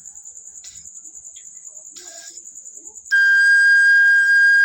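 Pan flute's high bamboo pipe being blown: two short breathy puffs that hardly sound, then about three seconds in a clear, steady high note sounds and is held. The breathy puffs are the sign of the lips not yet in the right position on the pipe.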